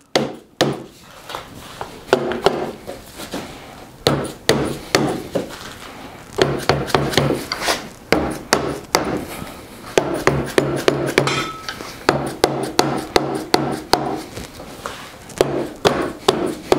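Hammer blows on a wooden mortise and tenon joint, knocking it apart: many sharp wooden knocks in irregular runs, several a second at their quickest.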